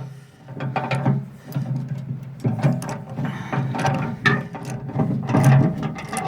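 Ratchet wrench clicking in short repeated strokes, tightening the single 3/4-inch bolt that clamps a steel edge tamer onto a tractor loader bucket.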